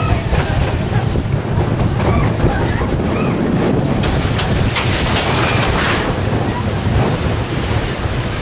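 Steady rush of wind on the microphone and the rumble of a mine-train roller coaster running along its track, heard from a rider's seat.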